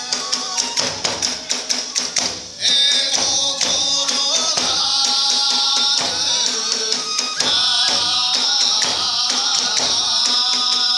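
Iwami kagura accompaniment of drums, hand cymbals and flute: fast, even drum strokes, then about two and a half seconds in the music suddenly gets louder, with sustained high ringing held over the continuing beat.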